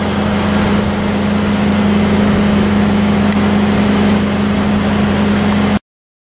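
Cummins N14-G2 six-cylinder diesel engine of a 350 kW standby generator set running steadily at its governed 1800 rpm, a constant deep drone with a strong hum. The sound cuts off abruptly near the end.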